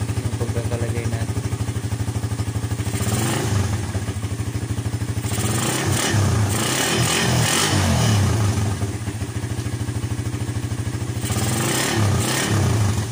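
Suzuki Raider R150's single-cylinder four-stroke engine idling, freshly running on a newly fitted Faito aftermarket ignition coil. The throttle is blipped: one rev about three seconds in, a run of quick revs from about five to nine seconds, and another short rev near the end.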